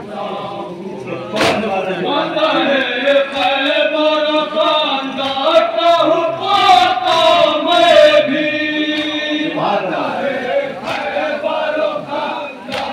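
A group of men chanting a noha, the Shia mourning lament, together, holding long notes. Sharp hand slaps of matam chest-beating are heard among the chanting.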